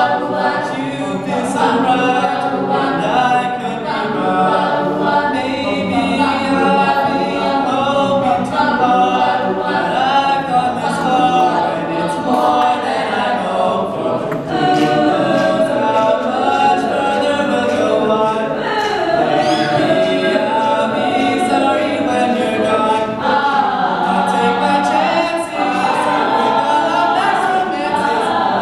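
High school choir singing a cappella, a lead singer on a handheld microphone over the group's backing vocals.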